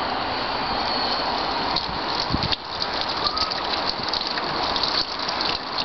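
Water gushing down a homemade rainwater cascade of pots and splashing into a collecting bin, steady with a brief dip about two and a half seconds in.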